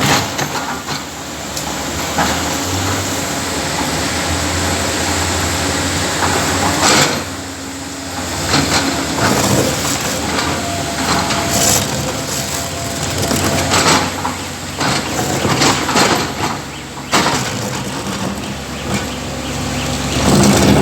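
Excavator at work: its diesel engine running steadily under a continuous mechanical rumble, with loud clanks and bangs every few seconds, the loudest near the end.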